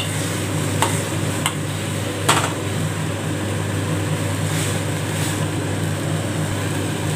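Steel spoon stirring and scraping a thick, sticky chana dal and jaggery filling in a stainless steel pan on the stove, with three sharp clinks of the spoon against the pan in the first two and a half seconds, over a steady low hum. The filling is being cooked down until it thickens enough to shape into balls.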